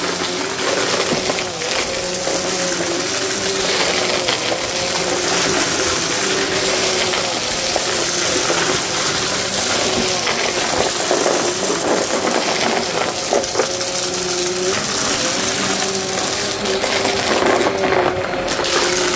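Vacmaster upright vacuum running over carpet, sucking up small hard mess-test debris: a steady motor whine whose pitch shifts up and down as it is pushed back and forth, with a constant patter of small clicks as the bits are pulled in.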